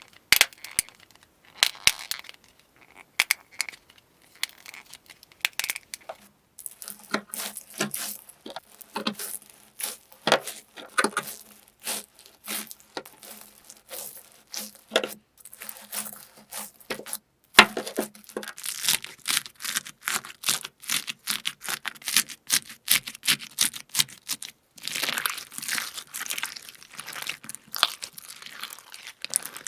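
Hands pressing and squeezing crunchy slime-type material, giving dense, irregular crackling and popping. There are brief silent gaps about six and a half and seventeen and a half seconds in.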